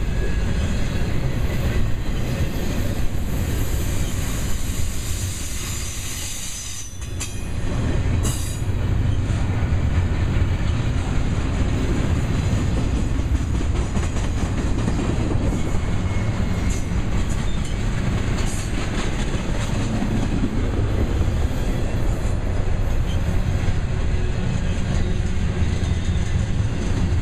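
Double-stack container cars of a long freight train rolling past: steel wheels rumbling and clattering over the rails. The sound dips briefly about seven seconds in.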